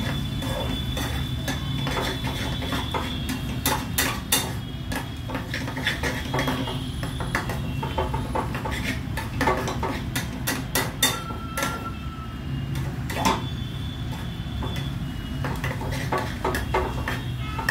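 A metal fork clinking and scraping irregularly against a steel pan as eggs are scrambled, over a steady low hum.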